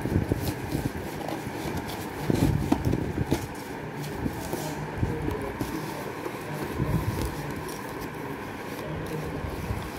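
Hands handling and picking at a taped cardboard parcel, with irregular scrapes and knocks, loudest about a third of the way in, over a steady low background hum.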